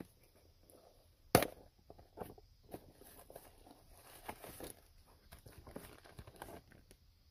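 Handling noises from a bagged replacement blend door actuator: one sharp knock about a second and a half in, then scattered light clicks and plastic rustling.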